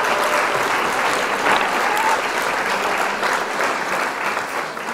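Arrma Vortek RC truck's tyres crunching over loose gravel and coarse road surface, picked up by the car-mounted camera's microphone as a dense crackle of small stones. There is a brief faint whine about two seconds in, and the crackle fades near the end.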